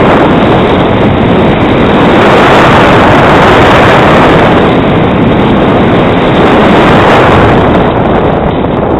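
Loud, steady rush of wind buffeting the microphone of a skier moving downhill, mixed with skis sliding over packed snow.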